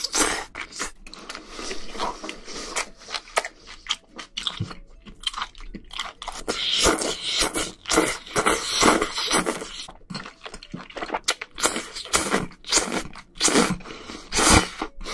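Close-miked eating sounds: wet slurping of noodles in spicy sauce and chewing, a quick, uneven run of sucks and smacks with one loud slurp near the end.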